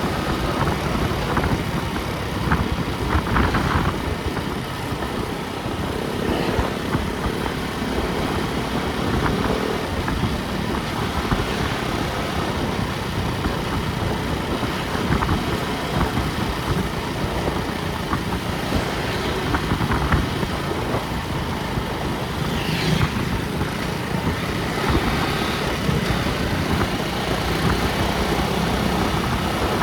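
Motor vehicle on the road: steady engine and road noise throughout.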